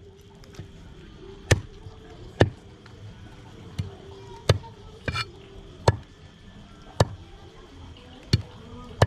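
Heavy meat cleaver chopping chicken on a wooden log chopping block: about eight sharp single chops at uneven intervals, roughly one a second.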